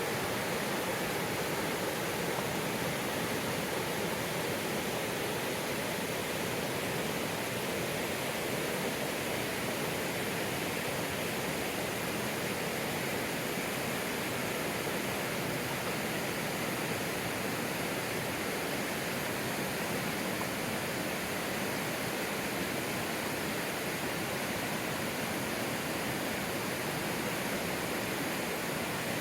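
River water rushing steadily, an even, unbroken wash of water noise.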